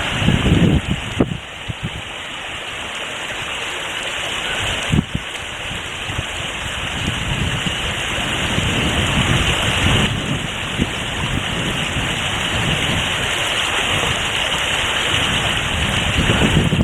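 Steady rush of a cascading waterfall, an even hiss of falling water. A few low rumbles cut in briefly near the start and again near the end.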